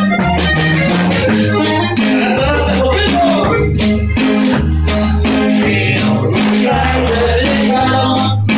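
Live band music: a man sings into a microphone over a deep bass line, a regular beat and a keyboard.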